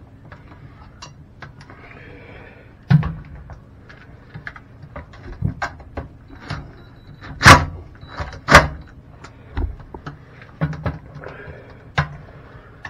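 Scattered clicks and knocks of hands working on a plastic toilet seat's hinge bolts as they are tightened, with two loud sharp knocks about a second apart midway.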